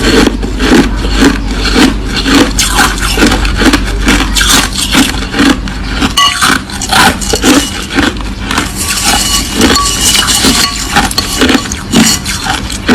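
Close-miked crunching of crushed ice being chewed, with quick repeated crunches at about two to three a second. A low hum sits underneath and stops about halfway through.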